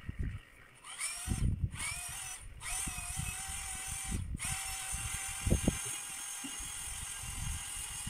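Electric drill starting in three short bursts, rising in pitch each time it spins up, then running steadily, with dull thumps underneath, the loudest about five and a half seconds in.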